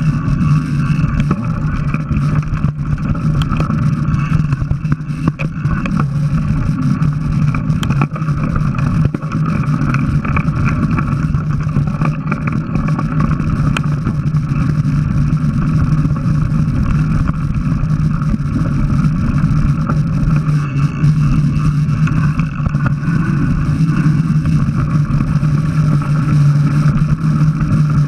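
Mountain bike riding noise picked up by a camera mounted on the rider or bike: a steady, even drone with many short knocks and rattles as the bike runs over a rough dirt trail.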